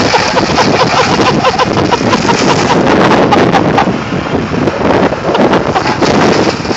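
Kubota riding lawn mower running hard as its blades chew through brush, with a dense clatter of sharp snaps over a steady roar. Wind buffets the microphone.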